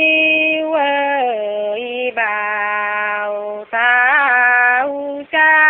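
One voice singing a Nùng folk song in long held, ornamented notes that step down in pitch, with short pauses for breath about two, three and a half, and five seconds in.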